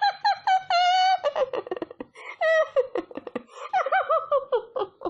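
A person laughing in a weird, very high-pitched squeaky voice, in quick repeated bursts. There is a short held note about a second in.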